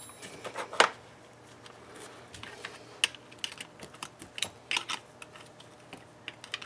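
Short, irregular metal clicks and taps as a tiller's tine gearbox housing and its bolts are handled on a workbench. The sharpest tap comes about a second in, and a cluster of clicks follows a few seconds later.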